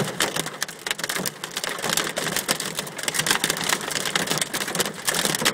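Hail and heavy rain pelting window glass: a dense, irregular clatter of sharp clicks over a steady rain hiss.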